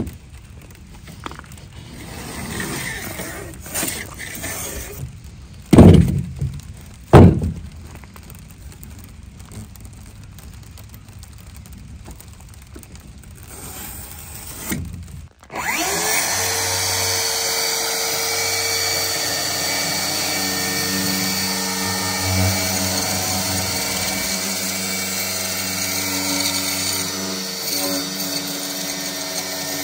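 Light handling noise with two sharp knocks about six and seven seconds in. From about halfway a DeWalt cordless circular saw starts and runs steadily, cutting through pink foam insulation board.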